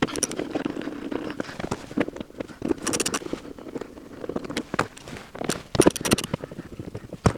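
Irregular clicks and short scrapes of hand-tool work, as the T30 Torx screws holding the door panel are being taken out, with clusters of sharper clicks partway through and near the end.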